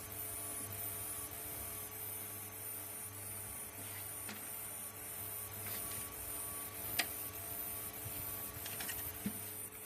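Desktop PC running on power without booting: cooling fans whirring with steady tones and a high-pitched whistle that pulses about twice a second, the squeal that goes with its black-screen failure. A sharp click about seven seconds in.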